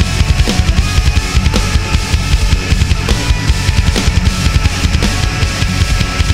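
Progressive metal with a drum kit playing a busy groove of rapid, even bass-drum notes under hi-hat and snare, with pitched guitar lines over it.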